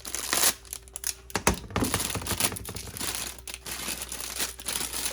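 Packaging crinkling and rustling as a pressure washer extension wand and its nozzle tips are unpacked, with a knock about a second and a half in.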